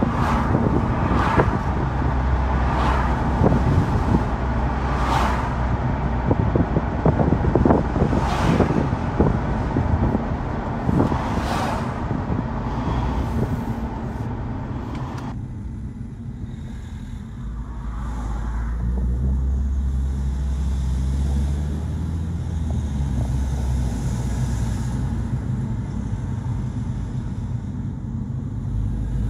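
Car driving, heard from inside the cabin: a steady low rumble of engine and tyres, with wind buffeting and crackling for the first half. About halfway through the buffeting stops abruptly, leaving a duller low rumble as the car slows into a roundabout and pulls away again.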